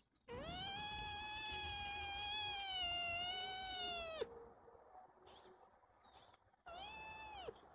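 Kitten meowing: one long, high meow of about four seconds that drops off sharply at its end, then a second, shorter meow near the end.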